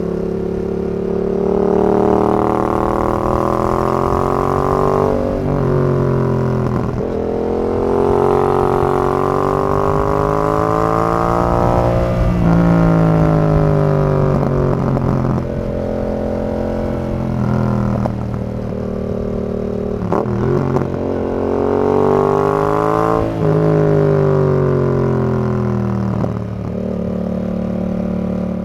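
Yamaha XSR 700's 689 cc parallel-twin engine through a Zard full exhaust, accelerating through the gears: the pitch rises in each gear and drops sharply at each upshift, several times over.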